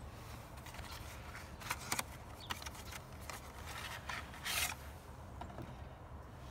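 Light handling noises as a plastic car wiper arm and blade is picked up: a few small clicks, and a brief rustle about four and a half seconds in, over a low steady background rumble.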